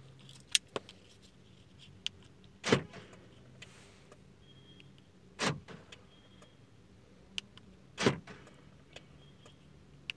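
Central door locks of a 2004 Chevrolet Lacetti actuating three times, about two and a half seconds apart, each a short clunk, as the buttons on a newly made flip remote key are pressed. A few light clicks come about half a second in.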